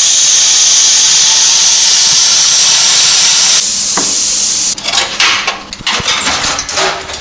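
HANDTEK Cut-40 plasma cutter hissing steadily as its arc cuts through a muffler's steel heat shield, then cutting off suddenly about three and a half seconds in. Sheet metal then clanks and rattles as the cut shield is pulled away.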